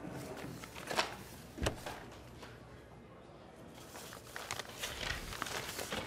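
Two sharp knocks about two-thirds of a second apart. Near the end comes rustling and crinkling of things being handled, growing louder.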